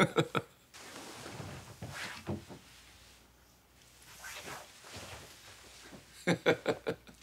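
Soft rustling of a padded winter parka and light movements on the floor as a man kneels into a deep bow and rises again. A few short vocal sounds come near the end.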